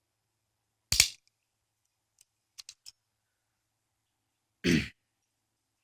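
Steel Hiatt Model 115 darby handcuffs being handled: a sharp metal snap about a second in, then a few light clicks. A short throat-clearing sound follows near the end.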